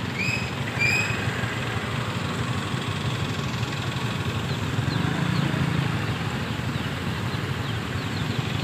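Steady engine hum and traffic noise of vehicles and motorbikes moving through shallow floodwater on a street. Two short high chirps about a second apart come in the first second.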